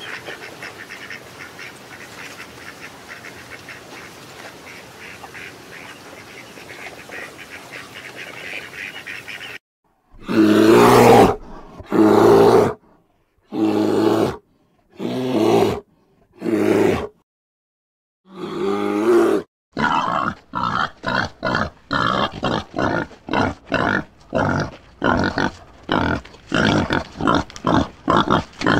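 Animal calls: a steady rough, rasping sound for about ten seconds, then half a dozen loud grunting calls about a second long each, then a fast rhythmic run of short grunts, about two a second.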